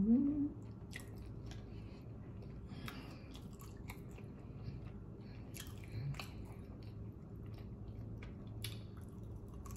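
A person chewing food with the mouth closed: soft, wet mouth clicks and smacks scattered throughout. A brief rising hum of the voice comes right at the start.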